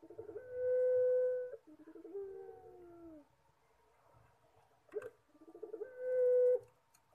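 Puter pelung dove, a domestic ringneck dove kept for its long crying coo, cooing twice. Each call opens with a quick stutter of short notes and swells into a long, loud, steady held note; the first trails off in a falling note. A sharp click comes just before the second call.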